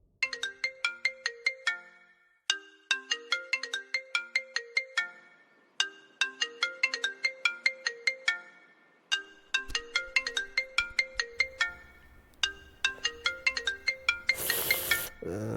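Mobile phone ringtone: a short, bright, marimba-like melody of quick notes repeating about every three seconds. A brief burst of hiss cuts in near the end.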